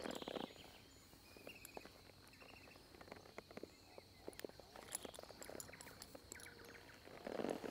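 Quiet outdoor ambience around a saddled horse standing under its rider: scattered soft clicks and rustles of the horse and its tack shifting, over a steady high insect hum and a few faint high chirps. A louder rustling comes in near the end.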